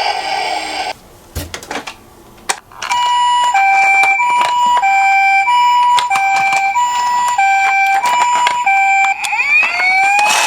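Toy ambulance's electronic two-tone siren, alternating a high and a low note about every 0.6 s from about three seconds in, then switching to a rising wail near the end. A rattling noise comes first, then a short pause with light clicks.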